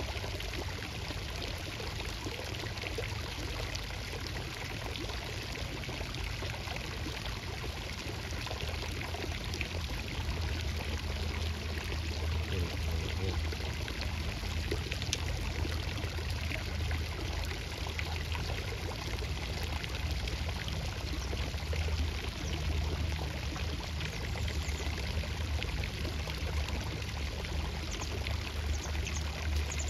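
Steady rush of flowing water, with a low rumble underneath.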